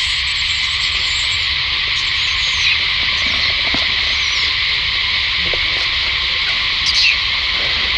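Steady, dense chorus of calling animals, heard as a constant high-pitched drone. Faint high chirps sit over it, and a brief, louder high squeak comes about seven seconds in.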